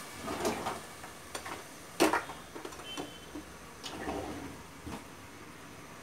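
Scattered soft ticks and small pops, with one sharper click about two seconds in, from a pressure cooker of carrot masala and freshly added water heating on a gas burner.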